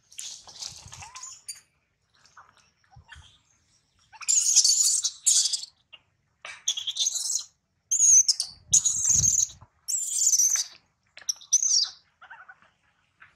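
Infant long-tailed macaque crying, begging its mother for food: about seven loud, high-pitched screeches in quick succession, starting about four seconds in.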